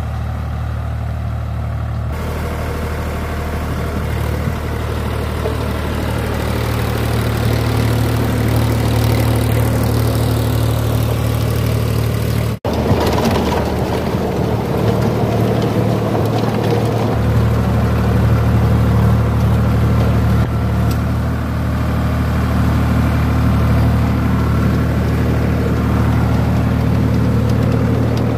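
Sonalika DI 47 RX Sikander 4WD tractor's diesel engine running steadily under load, driving a 6-foot rotavator through its PTO shaft, with the clatter of the rotavator tilling dry, cloddy soil. The sound cuts out for an instant about halfway through.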